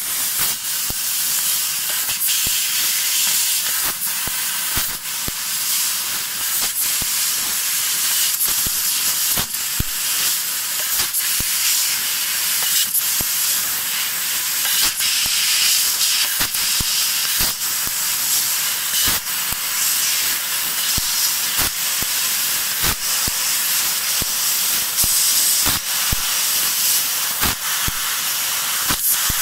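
Fiber laser cutting machine cutting 1 mm stainless steel sheet: a steady high hiss from the cutting head, broken by short sharp clicks about once a second.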